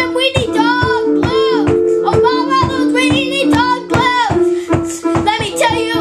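A child singing over an electronic keyboard: held keyboard notes under the voice and a steady beat.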